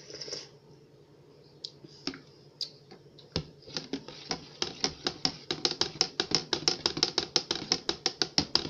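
Metal spoon stirring drink mix in a plastic pitcher, clicking against the sides: a few scattered clicks at first, then from about three and a half seconds in, quick regular clicks at about five a second that grow louder.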